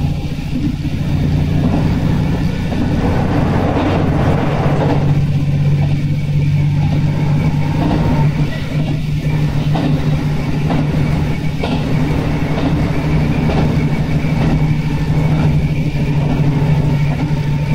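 Diesel railcar running steadily under way, its engine giving a constant low hum over the rolling noise of wheels on track.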